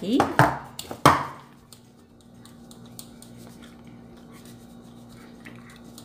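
Aluminium tube cake pan knocking against the kitchen counter as it is handled, with one sharp knock about a second in, then only faint clicks of handling over a steady low hum.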